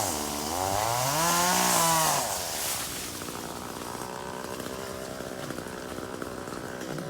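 Chainsaw revving, its pitch climbing over the first two seconds, then dropping back and running steadily at a lower, quieter pitch.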